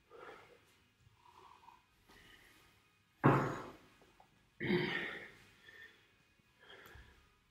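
A man breathing hard after a round of intense exercise: four loud, noisy exhales with quiet between them, the loudest and sharpest about three seconds in.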